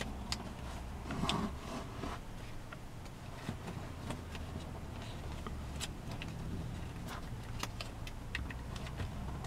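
A sheet of origami paper being folded and creased by hand: scattered crisp crackles and rustles as the folds are pressed and the paper shifts, over a steady low hum.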